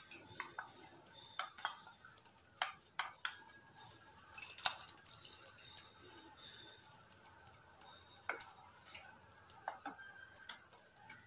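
Wooden spoon scraping and tapping against a steel bowl and a clay pot as curd is scraped out and stirred in: irregular light clicks and knocks, the loudest about halfway through, over a faint steady hiss.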